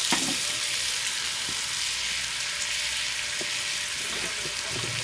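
Food frying in a pan: a steady crackling sizzle, with a few faint light knocks.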